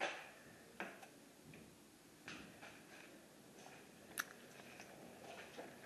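Faint scattered footsteps, clicks and knocks on a wet, debris-littered floor, with one sharp click about four seconds in.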